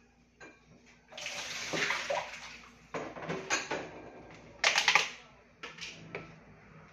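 Washing up at a kitchen sink: the tap runs for about two seconds, then come splashes and the short knocks and clatter of bowls and a cup being handled, the loudest burst just before the five-second mark.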